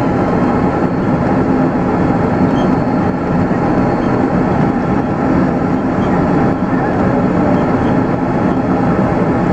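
Steady engine and airframe noise inside the cabin of an Airbus A330-300, an even, unbroken rumble.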